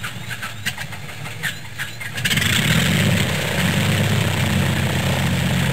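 An engine being started: irregular sputtering pops at first, then about two seconds in it catches and runs steadily and louder.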